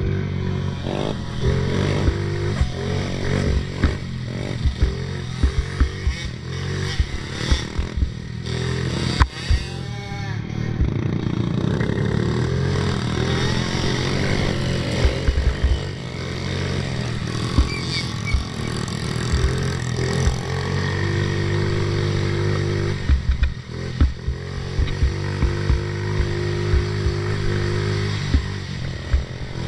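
Small 50cc youth ATV engine running under load, its pitch rising and falling as the throttle is worked, with frequent knocks and rattles from the quad bouncing over the rough trail.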